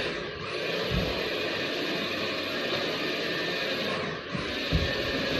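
Household vacuum cleaner running steadily, with a brief low thump about a second in and another near the end.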